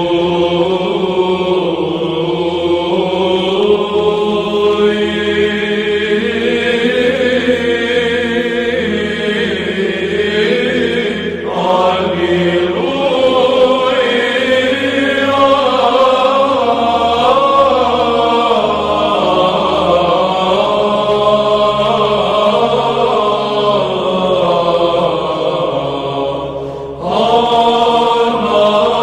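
Orthodox church chant: voices holding long, slowly moving notes over a steady low drone, with a brief break about eleven seconds in and another near the end.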